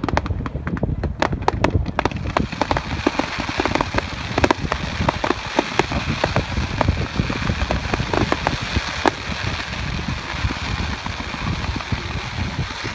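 Fireworks crackling: many sharp pops at first, thickening after about two seconds into a dense, continuous crackle like heavy rain.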